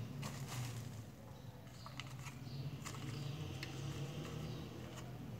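Faint scattered clicks and light handling noise from a handheld price-labelling gun and its strip of paper labels as the strip is fitted, over a steady low hum.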